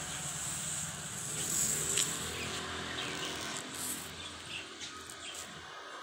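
Steady low hum under a band of high hiss, with short high-pitched chirps now and then.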